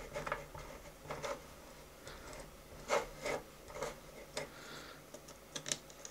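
Handling noise from a 3D printed plastic PCB vise and a circuit board: scattered light clicks and taps as the board is pushed between the plastic jaws, with soft rubbing in between.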